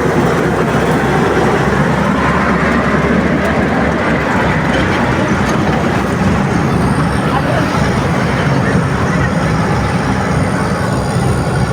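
Heavy vehicle engine running steadily close by: the truck bringing crushed-stone aggregate for the road work.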